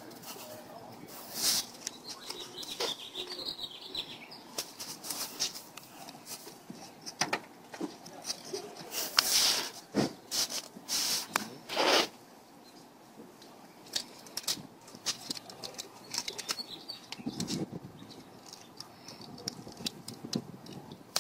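Handling noise at the solar cone boiler: irregular crinkling and rustling of its reflective Mylar film with scattered clicks and knocks as hands work at the water tube. The loudest bursts come about nine and twelve seconds in.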